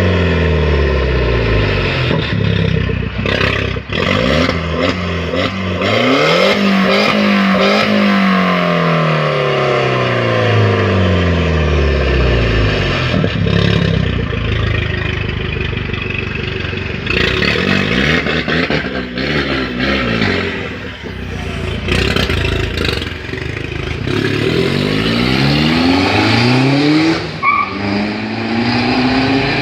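Citroën DS3 engine with an aftermarket exhaust diffuser, running loud and revved up and down several times, each rise taking a few seconds and each fall a few more.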